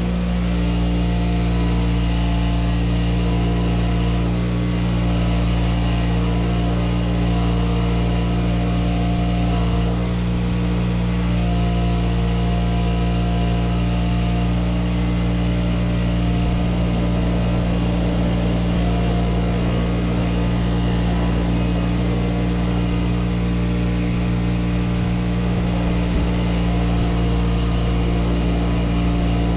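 Power wire wheel running steadily while rusty bolt threads are scrubbed clean against it. The scratchy brushing hiss stops briefly a few times as the bolt is lifted off, then resumes over the motor's steady hum.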